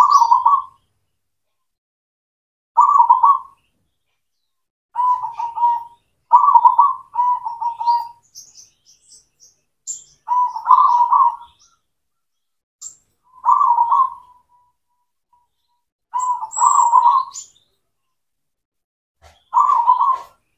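Zebra dove (perkutut) cooing in short warbling phrases, repeated every two to three seconds. A few faint high chirps come in around the middle.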